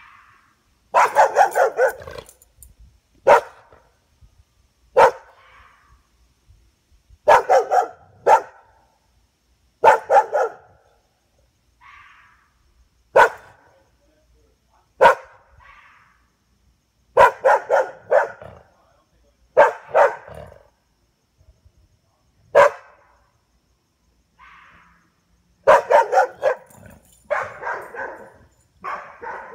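A dog barking at a fox: loud, sharp barks, some single and some in quick runs of two or three, repeated every one to three seconds.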